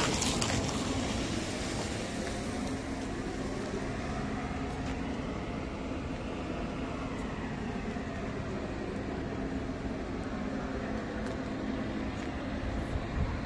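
Shacman heavy truck's diesel engine idling steadily, a low even hum with a constant pitch.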